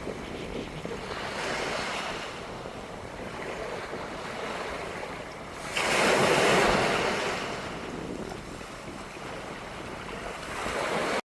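Wind blowing across the microphone over a steady rush of surf from the sea. A strong gust hits suddenly about six seconds in and dies away over a couple of seconds.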